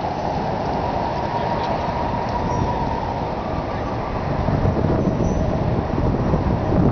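Steady outdoor city noise of passing traffic, a dense rushing hum. About halfway through, wind buffeting the microphone adds a rumble that grows.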